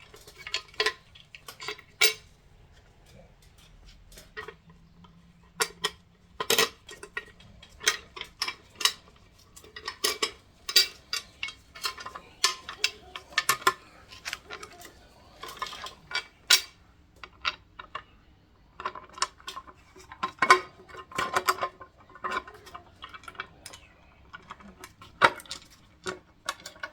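Irregular metallic clinks and taps of bolts and small metal parts being handled while a timing cover is fitted to an LS 5.3 V8 engine.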